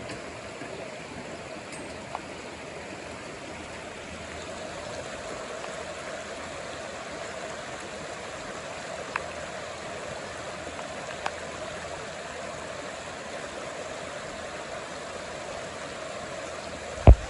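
Floodwater running and rushing steadily. A few faint clicks sound along the way, and there is one loud thump near the end.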